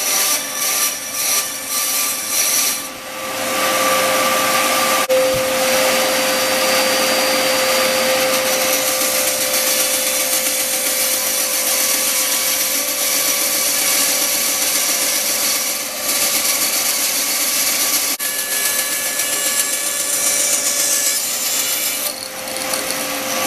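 A few seconds of rhythmic back-and-forth sawing strokes on wood, then a power tool running steadily against the wooden handle block, with a few short breaks.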